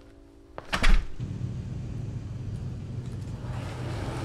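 A door shuts with a single loud thump about a second in, then a vehicle's engine runs with a steady low hum.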